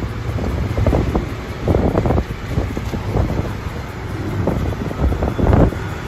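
Road noise from a moving vehicle, with wind buffeting the microphone in irregular gusts over a steady low rumble.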